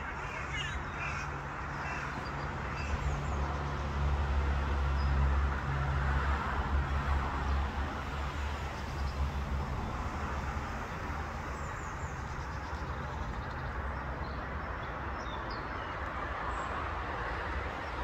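Outdoor dawn ambience: a steady low rumble and hiss that swells for a few seconds in the middle, under a few short bird calls near the start and thin high calls later on.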